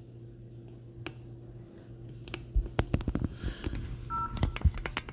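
Handling noise from a phone held over a Bible: a run of taps and knocks from about two seconds in, as a hand reaches for the phone to stop recording, with a short two-tone electronic beep near the end. A faint steady low hum runs underneath.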